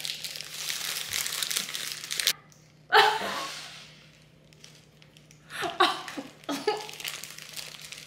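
Paper burger wrapper crinkling as it is peeled back, for about two seconds. About three seconds in there is a short loud mouth sound as she bites into the fried chicken thigh burger, followed by a few soft eating noises.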